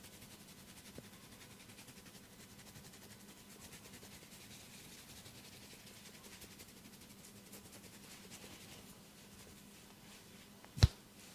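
Hands rubbing and kneading oiled skin in a head and neck massage, a faint steady rubbing, then a single sharp crack near the end.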